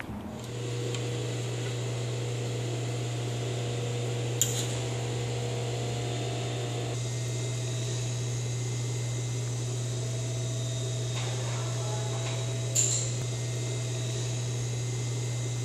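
Steady low machine hum filling the room, with two sharp clicks about eight seconds apart.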